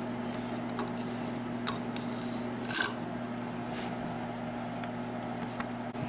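A few light metallic clicks and taps, the loudest about three seconds in, as small lock-picking tools are handled and set into a Yale rim cylinder, over a steady low hum.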